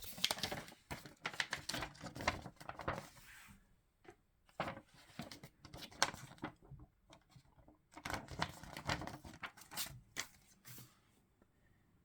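Toy packaging being handled: rustling, crinkling and tearing in three bouts of dense small clicks, dying away about a second before the end.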